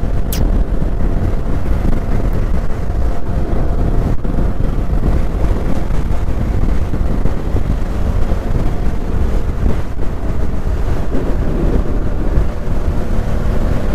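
Bajaj Dominar 400 single-cylinder motorcycle engine running steadily on the move, under heavy wind rushing over the microphone.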